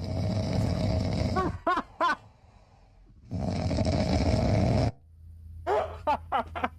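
A dog snoring: two long snores of about a second and a half each, with a few short, high, squeaky sounds between them and again near the end.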